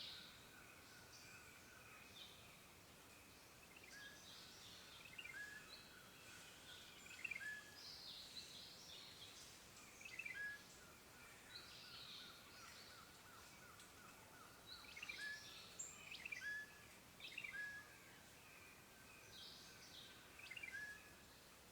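Faint forest birdsong from several birds: short rising chirps every second or two and bursts of higher twittering, over a soft background hiss. About halfway through, a steady rapid trill runs for a few seconds.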